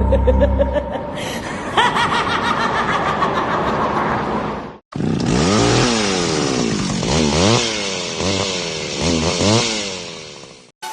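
An evil cackling laugh sound effect, then, after a brief cut about five seconds in, a two-stroke chainsaw revving up and down again and again.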